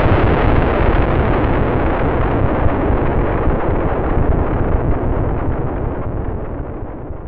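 Rumbling aftermath of an explosion sound effect: a dense, deep rumble that slowly fades and grows duller, falling away faster near the end.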